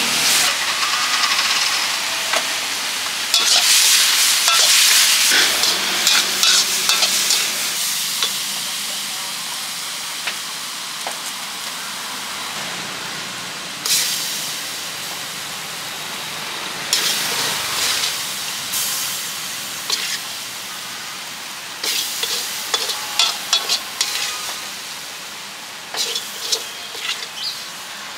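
Noodles sizzling as they are stir-fried in a steel wok, the sizzle slowly fading. A metal spatula scrapes and clanks against the wok in bursts, with a run of quick clanks near the end.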